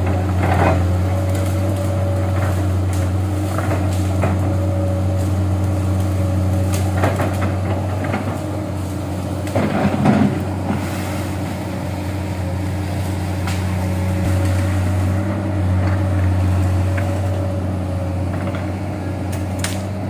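Komatsu PC200 hydraulic excavator's diesel engine running steadily under load as the machine pushes through brush, with branches and scrub cracking and crunching every few seconds, loudest about halfway through.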